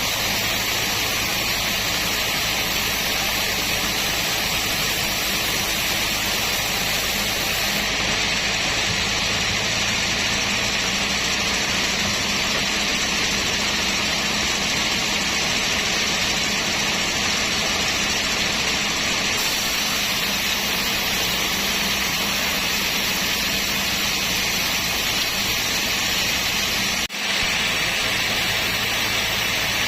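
Sawmill machinery running with a steady, continuous mechanical noise, broken only by a momentary drop near the end.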